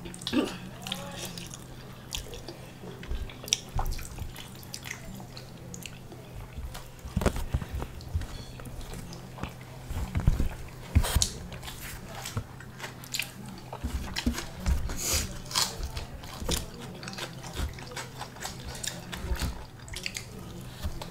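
Close-miked chewing and biting of food by two people eating with their hands. Irregular sharp crunches and clicks sound throughout, over a faint steady low hum.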